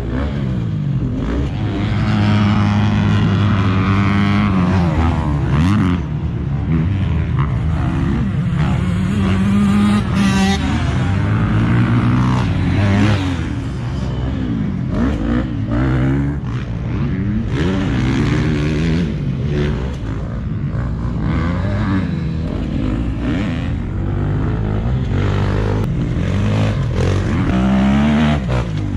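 Motocross dirt bike engines revving on a track, several at once, their pitch climbing and dropping again and again as the riders work the throttle.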